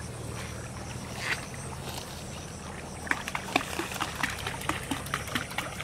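Small field-canal stream trickling under a steady low hum, with a quick run of small clicks and taps starting about halfway through.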